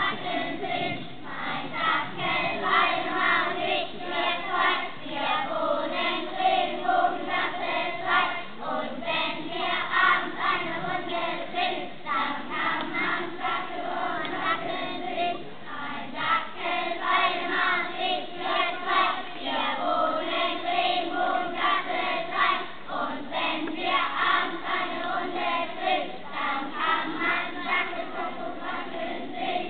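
A large group of children singing a song together with a steady rhythm.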